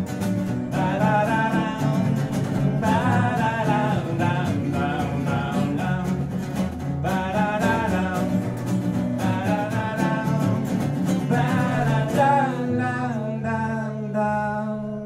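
Live band of strummed acoustic guitars playing an instrumental break between verses, with a wavering lead melody over the chords. It settles into a held chord about two-thirds of the way through, which rings and fades near the end.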